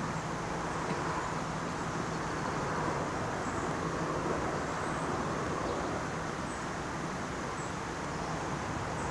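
Steady background hum of distant road traffic, even in level throughout.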